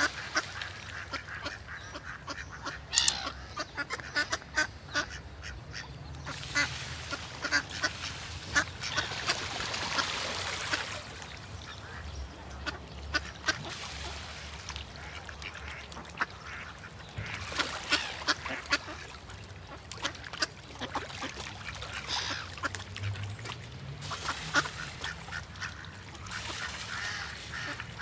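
Ducks quacking: runs of short, rapid quacks in clusters, with brief quieter gaps between them.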